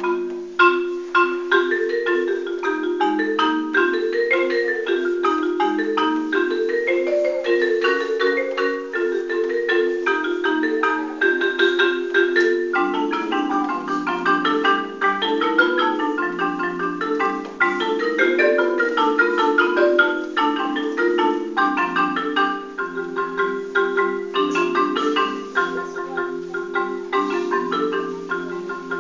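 Solo marimba played with mallets: a continuous stream of quick struck notes forming a flowing melody over repeated patterns.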